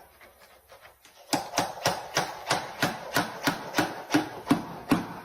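A quick, even run of sharp taps or knocks, about four a second, starting about a second in and stopping near the end.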